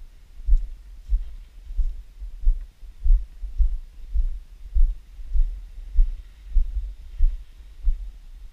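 Walking footsteps picked up as dull, deep thuds through a GoPro camera's body, about two a second in a steady walking rhythm.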